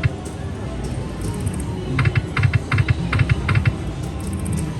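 Diamond Avalanche slot machine during a spin: its game music with a steady low beat, and a quick run of sharp clicking ticks about two seconds in.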